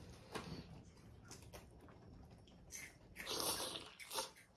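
A person eating water spinach soup from a bowl with chopsticks: a few faint clicks of chopsticks on the bowl, then several short wet slurps of broth and greens from the rim about three seconds in.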